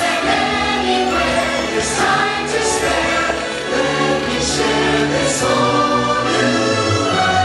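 Fireworks show soundtrack: music with a choir singing.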